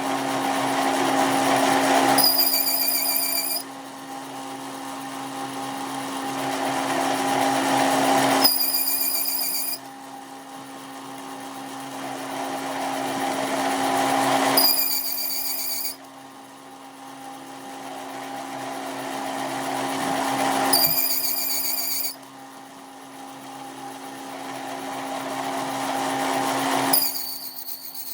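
A power tool running in repeated cycles: its noise builds over about five seconds, then drops off sharply, and a brief warbling high whine follows each drop, about four times over a steady low hum.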